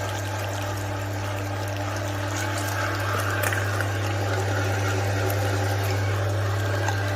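XZW-12A electric meat grinder with a 1.1 kW motor, running with a steady hum.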